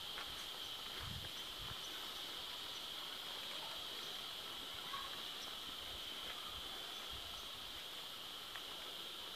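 Steady, high-pitched drone of insects, even and unbroken. A faint low bump is heard about a second in.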